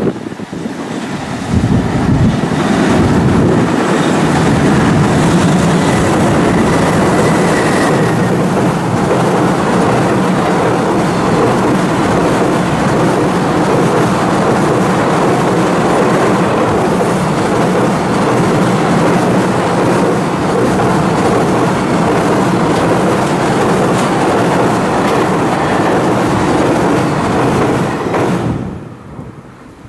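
Long container freight train passing close by at high speed: its wheels roll over the rails in a loud, steady rush that starts suddenly about a second and a half in and drops away near the end.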